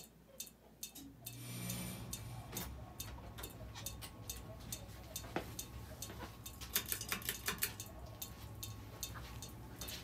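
1989 Sears Roebuck (Emerson 1895 Series) ceiling fan running, with a steady ticking about three times a second and a low motor hum that comes in a little over a second in; the owner says the fan will not balance. A cluster of louder clicks comes about seven seconds in.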